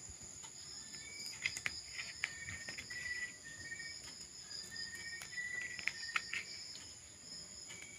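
Steady chirping of insects, with scattered light clicks and rustles of electrical wires being twisted and connected by hand.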